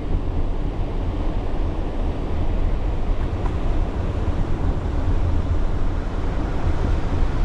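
Steady low rumble of a car driving slowly, heard from inside the cabin with the window down, with wind noise mixed in.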